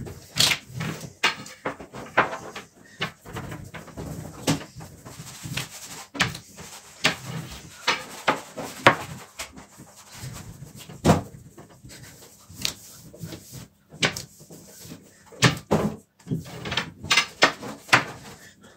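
A long, thin rolling pin with baklava dough wrapped around it, rolled and pushed back and forth over a tabletop. It gives irregular knocks and clacks, about one or two a second, over a low rolling rumble.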